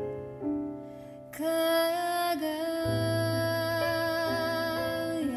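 A female vocal song played through a car audio system and heard inside the car's cabin. About a second and a half in, the singer comes in and holds one long note with vibrato nearly to the end.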